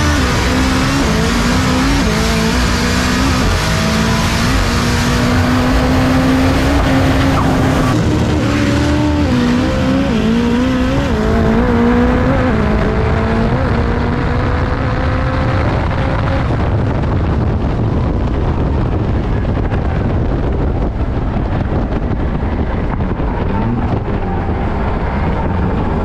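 Turbocharged Nissan SR20DET four-cylinder in a drag car running hard down the strip, its revs climbing and dropping with each gear change. After about twelve seconds the engine note fades away, leaving steady wind and road noise as the car slows.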